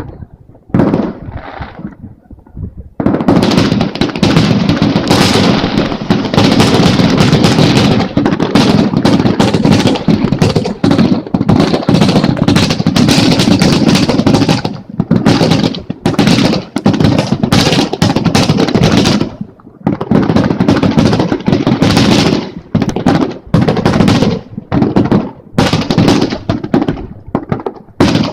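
Fireworks display in a rapid barrage: a few scattered bangs, then from about three seconds in a dense, almost continuous run of bangs and crackling, with brief lulls near the middle.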